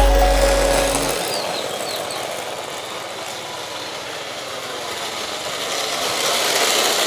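Steel ball-bearing wheels of a carrinho de rolimã rolling over pavement, a steady rasping rumble that fades a little mid-way and swells again. Music with a low bass line cuts off about a second in.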